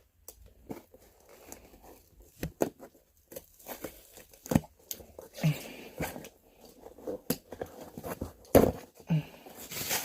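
A cardboard package being opened with scissors: irregular snips, knocks and tearing of tape and cardboard, with rustling of packing material and a few sharper knocks near the end.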